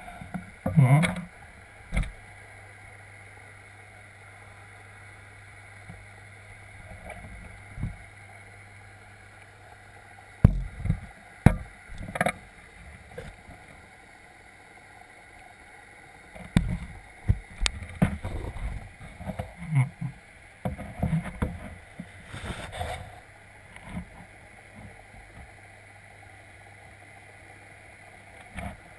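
Irregular muffled knocks and thumps heard from underwater through a camera's waterproof housing, as sturgeon and carp crowd right against it, over a steady low hum. The knocks bunch together in the middle stretch.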